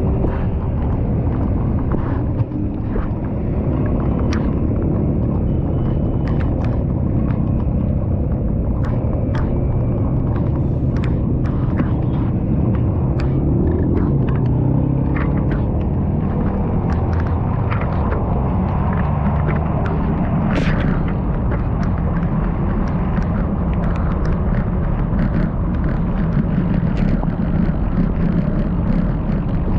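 Steady low rumble of wind buffeting the microphone while riding, with many scattered sharp clicks and ticks throughout.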